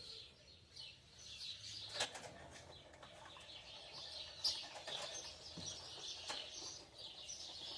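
Many small songbirds chirping and twittering, fairly faint, with calls overlapping. A sharp click about two seconds in.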